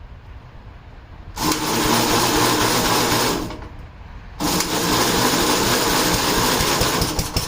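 1961 Gravely tractor engine being cranked over by its electric starter in two bursts, about two and three seconds long, with a short pause between; the engine is cold and does not run on.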